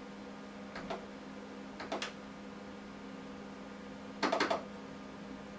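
Clicks of the CEREC unit's trackball buttons: single clicks about one and two seconds in and a quick run of clicks near the end, over a steady low electrical hum.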